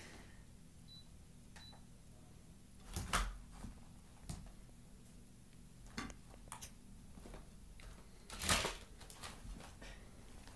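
A kitten leaping and pouncing after a laser dot, its paws thumping and scrabbling against a wall and landing on the floor in a few sharp knocks. The loudest come about three seconds in and again about eight and a half seconds in, over a faint steady hum.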